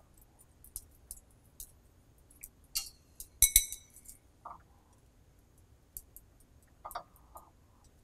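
Tomato slices being laid by hand into a frying pan: scattered light clicks and clinks with a few soft pats, the sharpest clink about three and a half seconds in.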